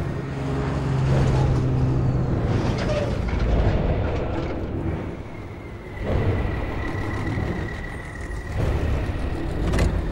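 Heavy military-style trucks' engines running and rumbling as they drive past on dirt, with a thin high steady tone held through the second half and a short sharp knock near the end.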